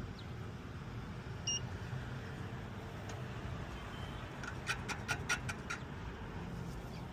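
Steady low outdoor rumble of machinery and traffic, with one short electronic beep about a second and a half in and a quick run of about seven sharp clicks about five seconds in.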